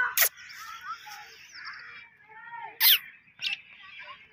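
Birds chirping and calling, with short curved chirps throughout and a few sharp, loud calls just after the start and around three seconds in.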